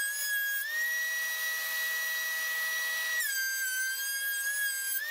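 DeWalt two-speed benchtop thickness planer running with a loud, high-pitched whine as it planes a cherry board. The pitch sits lower while the cutterhead is loaded by the board. It rises for about two and a half seconds starting under a second in, then drops again a little past three seconds in as it cuts once more.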